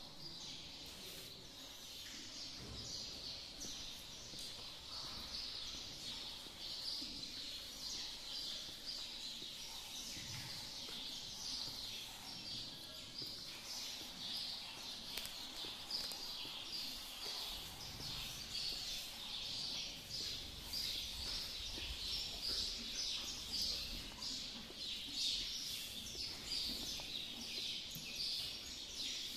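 Many small birds chirping together without a break, a busy chatter of short overlapping calls.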